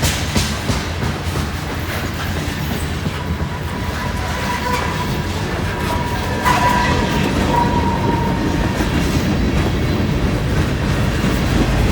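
Freight train rolling past as it climbs a grade: a steady rumble with wheels clicking over the rails, and a thin high wheel squeal that starts about four seconds in and fades a few seconds later.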